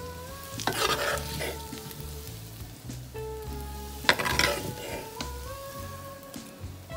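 Golden-fried potato chunks sizzling in hot mustard oil as a slotted spoon scoops them out of the pan. There are two louder bursts of sizzling and spoon-scraping, about a second in and about four seconds in. Soft background music with held notes plays underneath.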